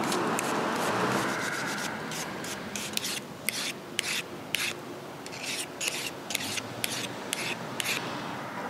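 A wire brush scrubs dirt off the blade of Felco 2 pruning shears. Then, from about two and a half seconds in, a diamond file is drawn along the cutting edge in quick short strokes, two or three a second, sharpening the blade.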